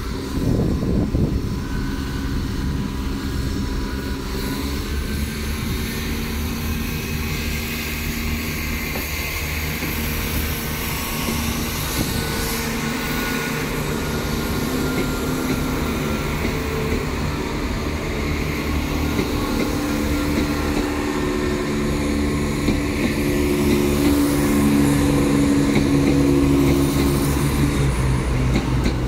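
Class 168 diesel multiple unit pulling away and passing close, its underfloor diesel engines running with a steady drone that grows louder in the last few seconds.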